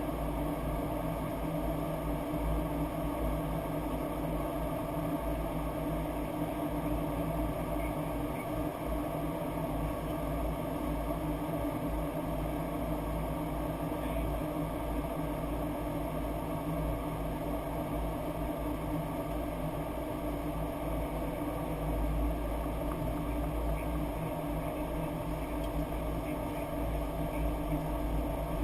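Steady flight-deck noise of a Boeing 737-800 in flight: a constant rushing drone with a low hum under it, unchanging throughout.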